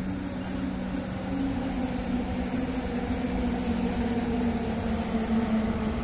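Shanghai Transrapid maglev train passing, its electric propulsion giving a steady hum that rises slowly in pitch and grows a little louder.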